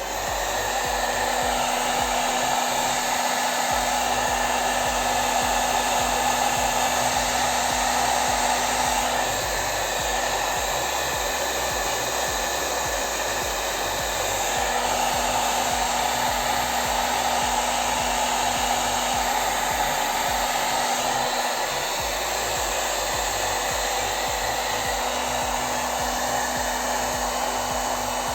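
Low-wattage electric hair dryer running steadily: a fan whir with a rush of blown air. Its hum and loudness shift a little a few times.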